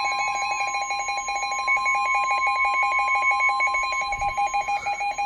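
NOAA Weather Radio warning alarm tone: a loud, steady tone of about 1 kHz, with a second, rapidly pulsing beep just below it. It is the alert that signals a warning message is about to be read, here a tornado warning.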